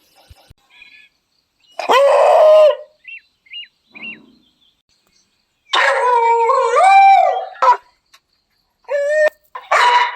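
Beagle baying and howling: a short howl about two seconds in, a few brief high squeaks, then a long wavering howl of about two seconds that rises and falls in pitch. Short barks follow near the end.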